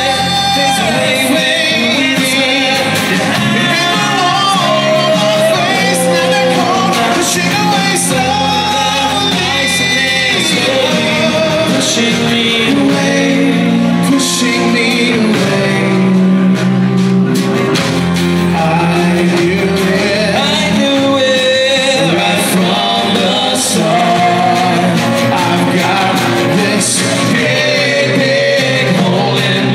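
Live acoustic rock performance: acoustic guitar played under male singing, heard in a large room.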